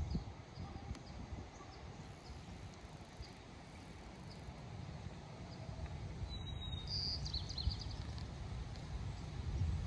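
Outdoor ambience: a low wind rumble on the microphone, with faint, short, high chirps scattered throughout.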